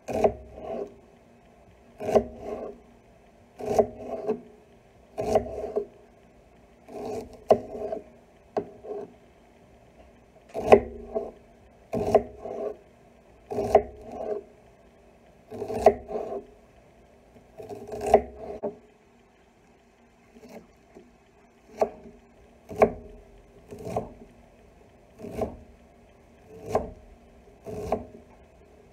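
Chef's knife cutting through an onion on an end-grain wooden cutting board: each stroke ends in a sharp knock of the blade on the wood, in short runs of cuts about every one and a half to two seconds, with a brief pause a little past two-thirds of the way through as the onion is minced.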